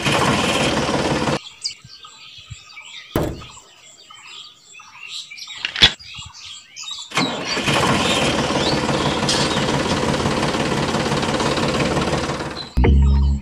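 A tractor engine runs for about a second and cuts off. It starts again about halfway through and runs steadily for some five seconds. Birds chirp in the quieter stretch between.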